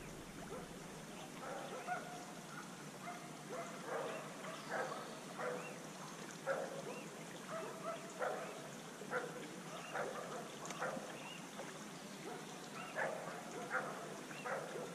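Faint, repeated short animal calls, roughly one a second, each rising and falling in pitch, over the even hiss of a shallow creek.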